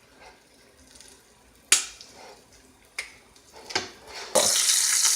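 Three sharp knocks, the first the loudest, then about four seconds in a steady sizzle starts abruptly: flour-dusted oxtails searing in hot oil in an Instant Pot on its sauté setting.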